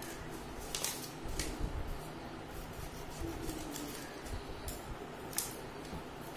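Scissors cutting through a sheet of paper: a handful of separate crisp snips, the loudest near the end, with the paper handled between cuts.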